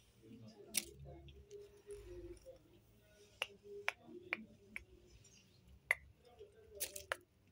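Scattered short, sharp clicks, about eight of them and most bunched in the second half, over a faint, low, murmuring voice.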